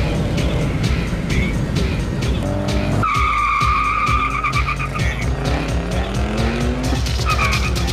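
A 1993 Mazda RX-7 and a 2004 Pontiac GTO accelerating hard side by side, engines rising in pitch, with a steady high tire squeal about three seconds in. Background music with a steady beat plays under it.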